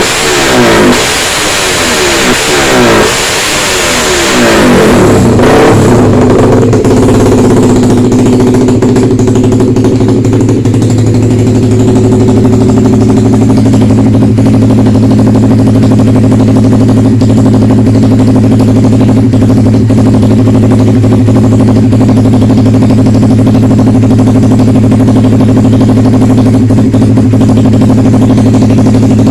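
Suzuki Satria FU motorcycle with a swapped-in Suzuki GSX engine, loud, revved up and down several times, then running at a steady speed for the rest of the time.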